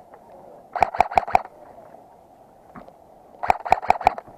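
Airsoft gun firing two quick strings of about five shots each, a few seconds apart, each shot a sharp crack.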